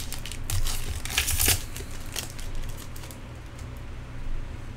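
Foil trading-card pack wrapper crinkling as it is torn open and handled, loudest in the first second and a half. After that comes quieter rustling as the cards are pulled out of the pack.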